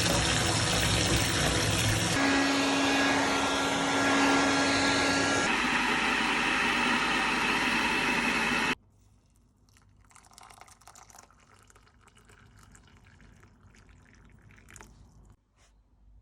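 Loud rushing noise like water running, in three abruptly spliced stretches, the middle one with a steady hum over it; it cuts off suddenly about nine seconds in, leaving faint rustling and clicks.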